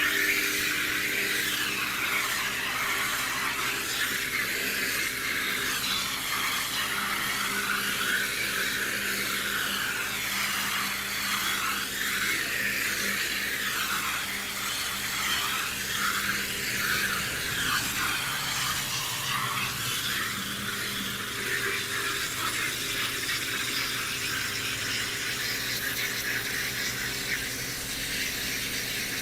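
Canadian Tire Certified 1800 PSI brushed electric pressure washer running steadily with a motor hum, its water jet hissing against the house wall and shifting in pitch as the spray is moved.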